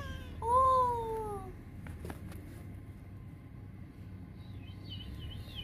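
A cat meows once: a single long call that falls in pitch, about half a second in.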